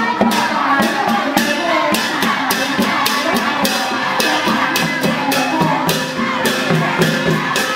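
Music with drums and a quick, steady percussion beat, over the voices of a crowd.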